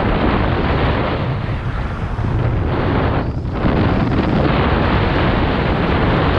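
Wind buffeting the microphone while skiing downhill at speed, a loud, continuous rushing noise with a brief lull about three seconds in.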